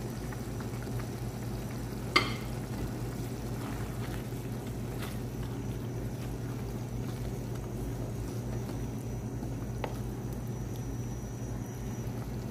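Ground meat and blended tomato sizzling steadily in a pan on the stove, with one sharp click about two seconds in and a few fainter clicks later.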